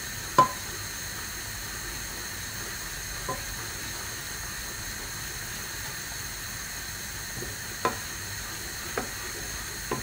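Steady hiss of a pot of fish-bone stock boiling on the hob, with four light knocks of a utensil or pan.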